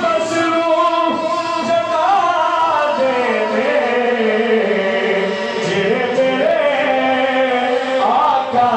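A man singing a naat (Urdu devotional praise of the Prophet) into a microphone, drawing out long, ornamented notes that slide slowly in pitch.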